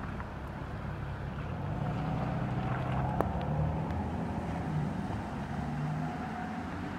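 Street traffic on wet pavement: a motor vehicle's engine hum swells in the middle and fades, over a steady hiss of wet road noise. There is one sharp click about three seconds in.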